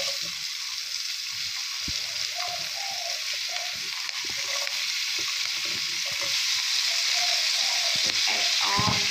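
Sliced onions dropped into hot oil with whole spices in a wok, sizzling: a steady frying hiss that starts suddenly as they hit the oil. It grows a little louder further in as green chillies, curry leaves and garlic go in on top.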